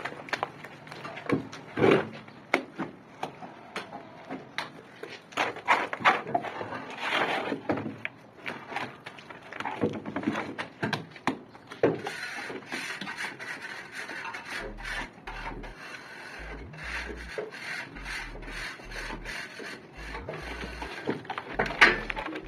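Wet gypsum plaster being spread and scraped onto a wall with a plasterer's trowel: irregular scraping strokes mixed with short knocks.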